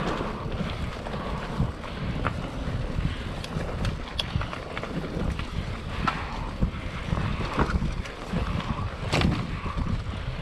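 Wind buffeting the microphone over the rumble of a mountain bike being ridden, with scattered sharp clicks and knocks from the bike, the loudest about nine seconds in.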